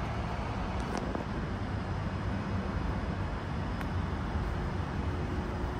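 Steady low rumble of road traffic, vehicles running and passing nearby, with a couple of faint clicks.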